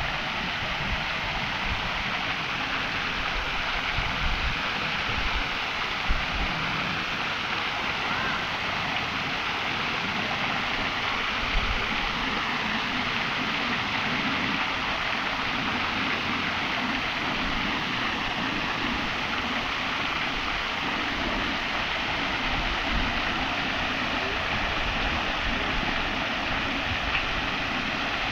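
Water from the small jets of a round stone park fountain splashing steadily into its basin.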